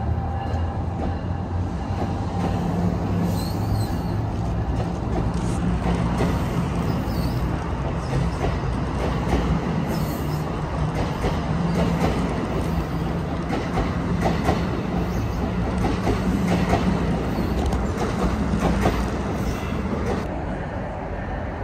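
New Jersey Transit train of double-deck coaches, hauled by an electric locomotive, rolling past along the platform. A steady rumble of steel wheels on rail with scattered clicks.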